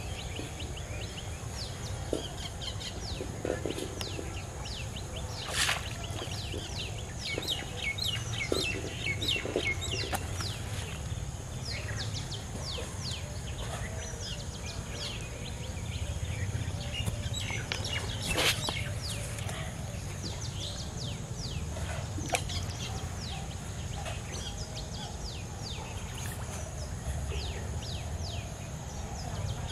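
Outdoor birds chirping over and over in short, quick falling calls, with a steady high hiss and a low outdoor rumble underneath. A few sharp clicks stand out, the loudest about two-thirds of the way through.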